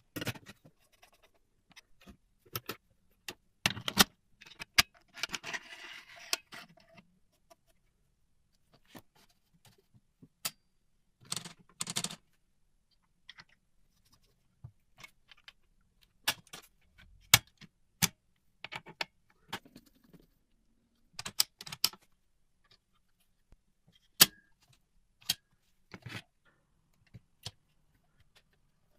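Scattered sharp metallic clicks and clacks from a 1976 mechanical typewriter's mechanism being handled and worked, single strikes and small clusters at irregular intervals. A short scratchy noise comes about five seconds in.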